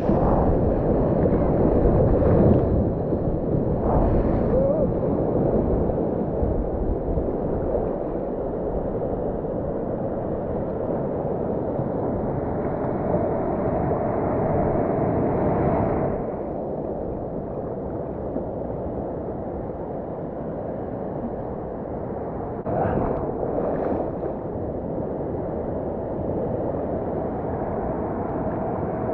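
Ocean water sloshing around a camera held at the surface, over a steady muffled rumble of breaking surf. Brief louder splashes come about two and four seconds in and twice near 23 seconds.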